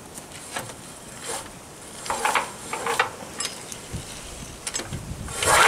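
Recoil starter of an 11 HP single-cylinder petrol engine being pulled, with scraping and clicking from the cord and housing, on a cold start with the choke on. The engine catches on the second pull near the end and runs loudly.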